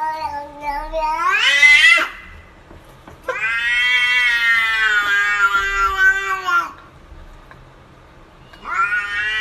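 Tabby-and-white cat meowing: a call that climbs in pitch over the first two seconds, then a long drawn-out meow lasting about three seconds that sounds like a stretched 'why', and a new call starting near the end.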